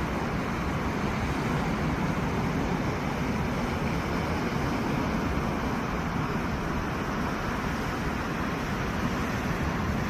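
Sea surf: waves breaking and washing on the shore, heard as a steady, even rush with no single crash standing out.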